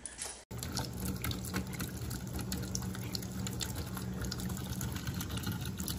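Kitchen tap running, a steady stream of water splashing into a stainless steel sink; it starts about half a second in.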